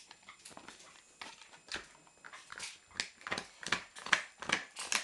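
Greyhound crunching and gnawing on a hard pig's ear: a run of sharp cracks that come quicker and louder from about three seconds in.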